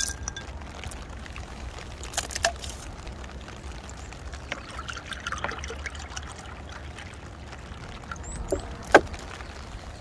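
Spring rain falling steadily with scattered drips. A few sharp clicks and knocks come through it, the loudest a little before the end, as a plastic water bottle and sunflower seeds are handled at a small plastic cup.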